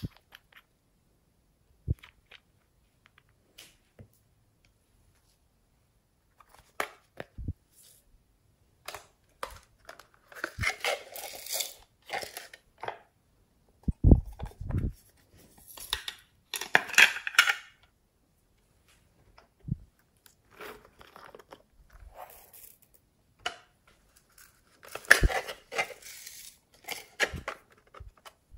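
Hands handling and opening small plastic slime containers: scattered sharp clicks and taps of plastic, a few dull thuds, and three longer bursts of rustling and scraping, each a second or two long.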